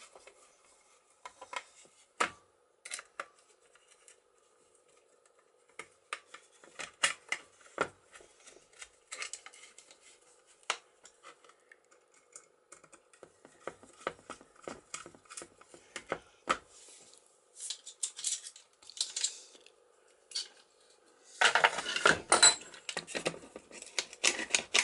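Scattered small metallic clicks and clinks as a boat cabin-door mortise lock and a screwdriver are handled during reassembly, with a louder, denser flurry of clicking and rattling near the end.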